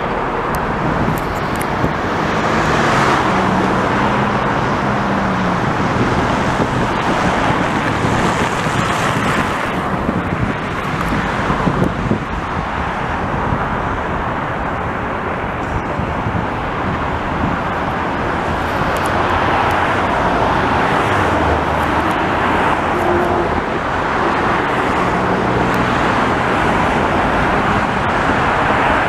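Steady, loud highway traffic noise, rising and falling as vehicles pass, with the low engine drone of heavier vehicles coming through twice.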